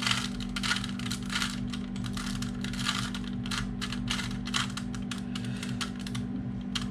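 Plastic Rubik's Cube layers being twisted in quick runs, a dense, irregular string of clicks and rattles, over a steady low hum.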